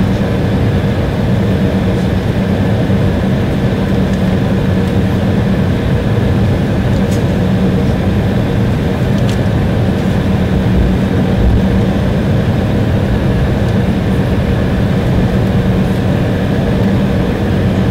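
Cabin noise of an Embraer 170 taxiing, its GE CF34 turbofan engines running steadily at taxi power with a constant low hum, heard from inside the cabin over the wing.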